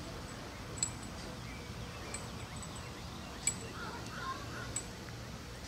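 Quiet outdoor ambience: a steady low hum, four faint sharp ticks about a second and a quarter apart, and faint chirping about four seconds in.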